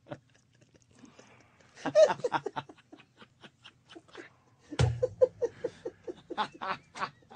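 People laughing: a burst of laughter about two seconds in, then rhythmic ha-ha laughter from about five seconds in.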